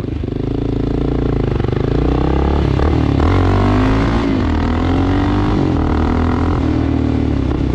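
Honda XR650L's single-cylinder four-stroke engine running through a Big Gun EVO R slip-on exhaust while the bike is ridden on the road. The engine note dips and climbs a few times around the middle and otherwise holds steady.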